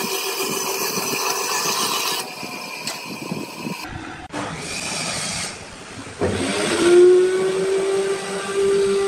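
Bandsaw running and cutting through a thick curved piece of pine. After a break, a router in a router table winds up with a rising whine about six seconds in, then runs steadily at a high pitch.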